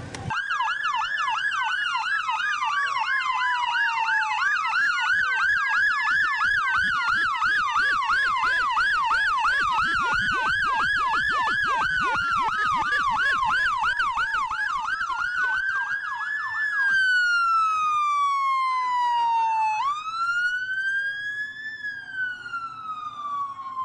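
Police car sirens: one electronic siren on a fast yelp, three to four warbles a second, over another on a slow wail that rises quickly and falls slowly about every five seconds. The yelp stops about two-thirds of the way through, leaving the wail alone.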